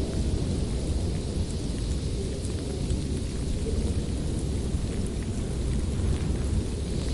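Winter storm ambience: a steady low rumble under a hiss, with a few faint scattered ticks.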